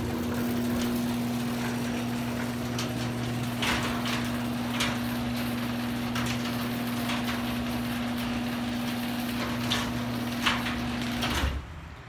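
Genie garage door opener running with a steady hum as it lowers a sectional garage door, with occasional clicks as the door travels down its tracks. The motor stops suddenly about eleven seconds in, when the door is fully closed. The door closes all the way because the safety sensors are unblocked.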